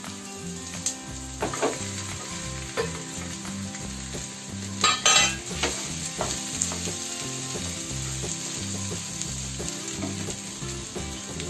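Boiled mashed potatoes and onion-tomato masala sizzling in mustard oil in a frying pan while a wooden spatula stirs them. There are a few knocks and scrapes from the spatula, the loudest about five seconds in.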